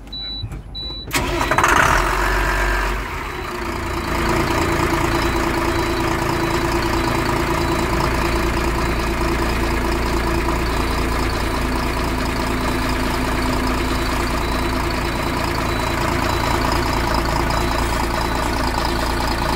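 A truck's diesel engine starting about a second in, loudest just as it catches, then running steadily at idle. This is a run after its cleaned injector nozzles and fuel injection pump have been refitted. A rapid high beeping comes before it starts.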